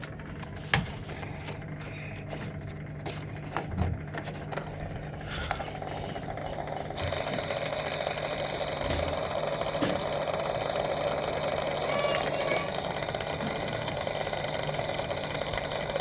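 Samsung EcoBubble washing machine starting a spin cycle on a test run after new bearings were fitted: a low hum with a few clicks, then from about seven seconds a steady, louder whirring rush as it drains.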